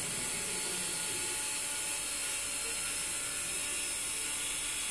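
Electric stick blender running steadily in a tall jug, blending alioli.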